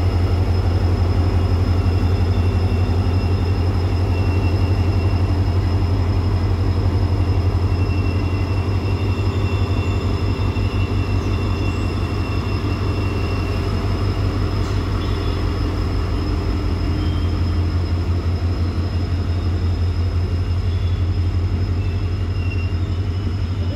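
Diesel locomotive engine throbbing steadily as it hauls a passenger train slowly out, with the coaches rolling past. The rumble eases off a little as the train draws away.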